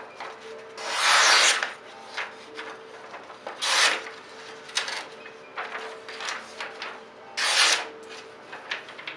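Ganzo G727 folding knife's blade slicing through a hand-held sheet of paper, with rasping cutting strokes. Three long, loud cuts come about a second in, in the middle and near the end, with shorter, fainter strokes between them. The edge catches a little as it cuts.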